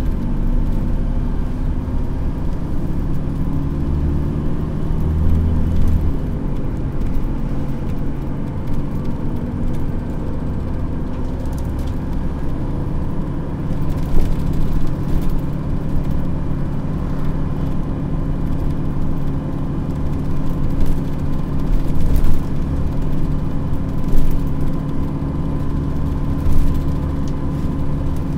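Dennis Trident double-decker bus's diesel engine, heard from inside the bus, pulling hard: it rises in pitch over the first few seconds, then holds a steady drone. A few short knocks later on, from the bus going over bumps.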